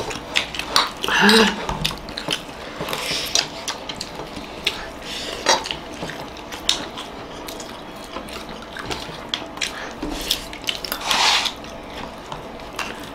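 Metal spoon and fork clicking and scraping against plates of biryani, in scattered irregular clinks throughout.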